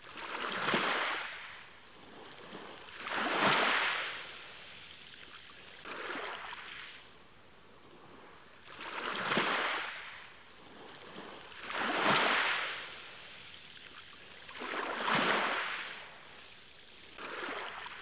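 Small ocean waves washing onto the shore: a swelling and fading hiss of surf about every three seconds, seven washes in all, a few of them weaker, over a steady low wash of water.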